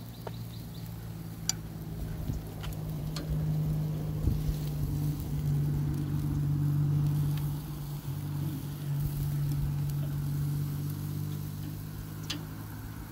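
A motor vehicle's engine humming steadily, growing louder toward the middle and then fading. A few sharp metal clicks of tongs against the grill grate cut through it.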